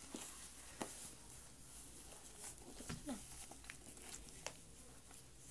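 Faint rustling of cloth and a few light clicks and taps as a baby doll is handled and dressed in a onesie.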